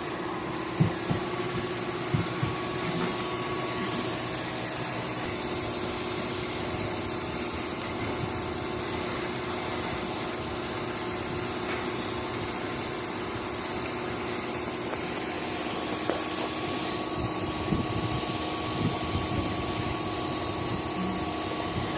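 Air compressor running steadily, with a hiss of air and a steady hum. A few light knocks come in the first few seconds.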